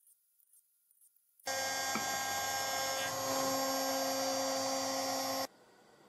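DIY CNC router spindle running with an end mill cutting aluminium: a steady, high whine made of many fixed tones over a hiss. It starts suddenly about a second and a half in and cuts off suddenly about four seconds later.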